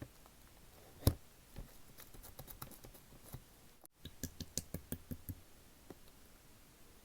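Slime being squeezed and worked by hand, making crisp clicking pops: one sharp pop about a second in, a few scattered clicks after it, and a quick run of clicks from about four to five and a half seconds.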